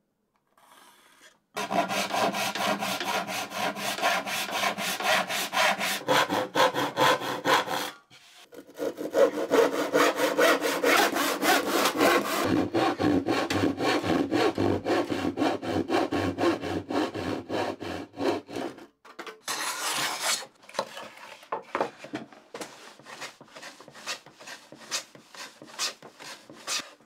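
Hand saw cutting through a wooden board in quick, even strokes, with a short pause about eight seconds in. From about nineteen seconds in the strokes come lighter and further apart, as the cut nears its end.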